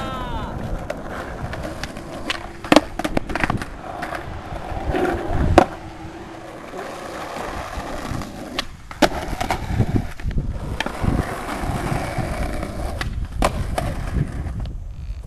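Skateboard wheels rolling on asphalt, with several sharp clacks of the board striking the pavement; the loudest comes about five and a half seconds in.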